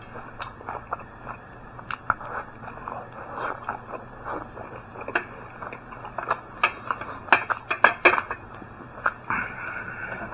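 Close-miked chewing of a mouthful of steamed bun: irregular soft mouth clicks and smacks, with a busier run of sharper clicks about six to eight seconds in.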